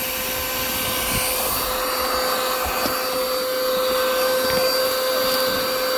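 Small car vacuum running steadily, a constant motor whine over a rush of air as it sucks up sand and grit from the car's interior.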